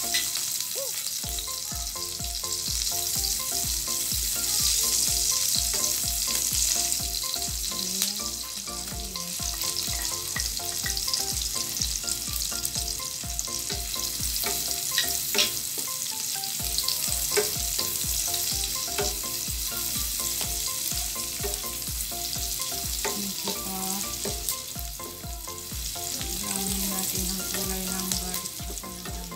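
Sliced onion and garlic sizzling in rendered pork fat in a non-stick wok, with a wooden spatula stirring and now and then clicking against the pan.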